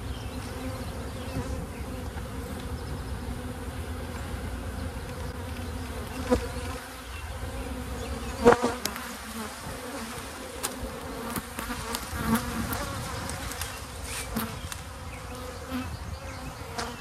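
Honeybees buzzing around an open hive, a steady hum, with a few sharp knocks and clicks from wooden frames being handled in the hive box. The loudest knock comes about eight and a half seconds in.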